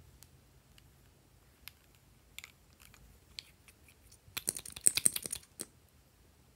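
Light plastic clicks and taps from a lip gloss tube being handled. Then comes a louder, rapid run of clicking lasting about a second as its cap is worked off.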